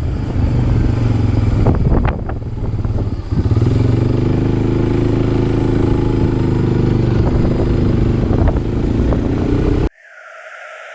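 ATV engine running under way on a trail, with rattle and clatter from the machine over rough ground. The engine eases off about two seconds in, picks back up and holds a steady speed. The sound cuts off suddenly near the end.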